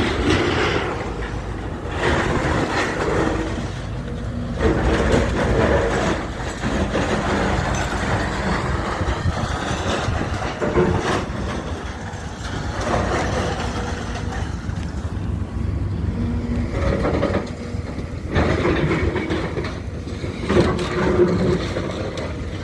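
Heavy diesel demolition machinery running under load, with the grinding, scraping and crunching of a house being torn down. Short metallic squeals come and go throughout.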